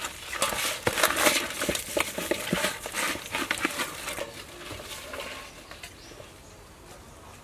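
Hands working a whole raw chicken: quick wet squelches and crackling rustles as lemongrass and leaves are pushed into its cavity, thinning out to quieter handling noise about four and a half seconds in.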